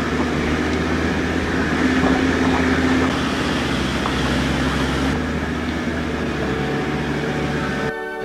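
Four-wheel-drive vehicle engine running at low speed and the vehicle rumbling over a rough dirt bush track, heard from inside the cab; a steady low hum with road rumble over it, giving way to music just before the end.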